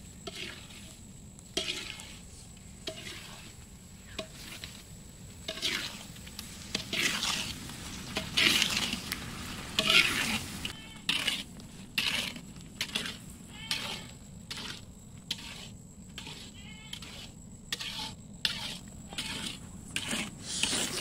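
Long metal ladle stirring and scraping orange segments around a steel karai (wok) while the syrupy orange pickle mixture sizzles in the pan. The strokes repeat about once a second at first, then quicker, about twice a second, in the second half.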